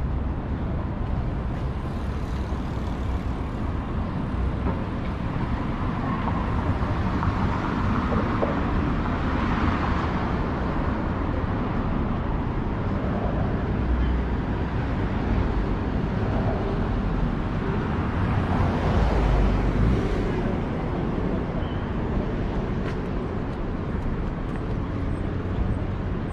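City street traffic: a steady low rumble of road noise, with passing vehicles swelling up about eight to ten seconds in and again around nineteen seconds.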